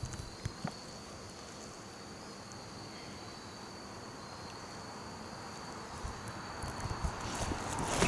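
Insects singing one steady high note over faint outdoor hiss, with a few light clicks near the start and a rising rush of noise near the end.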